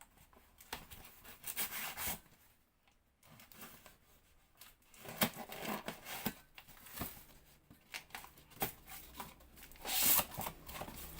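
A cardboard box being opened and unpacked by hand: packaging tearing and rustling, with scattered clicks and knocks in irregular bursts.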